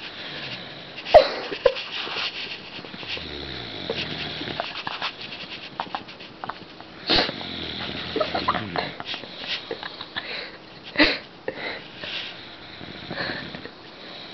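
A sleeping woman snoring: two long snores with a low rattling drone that falls in pitch, about three and seven seconds in. A few sharp taps come between them.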